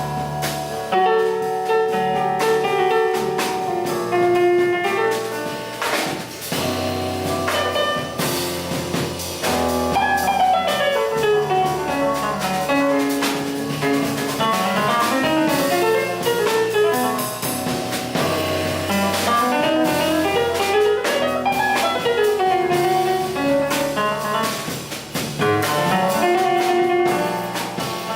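Jazz piano trio playing: fast piano lines over bass and drum kit, with cymbals and drum strokes throughout.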